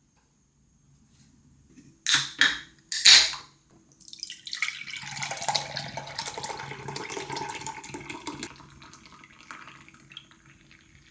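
Two short, loud noisy bursts about two and three seconds in, then liquid pouring steadily for about six seconds before tailing off.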